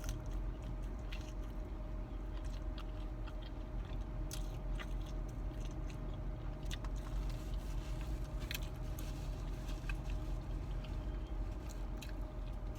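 A person chewing food close to the microphone, with scattered crunches and wet mouth clicks, over a steady low hum.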